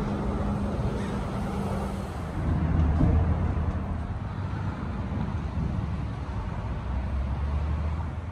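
Road traffic noise: a steady rush of passing cars with a low engine hum that grows a little louder about two and a half seconds in.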